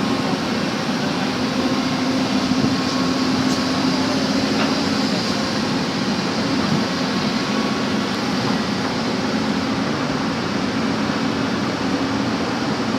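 Backhoe engine running steadily, a constant low hum under a broad mechanical noise.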